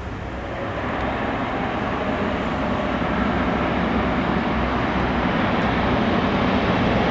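Dassault Falcon 2000 business jet's twin turbofan engines: a steady rushing jet noise that grows steadily louder.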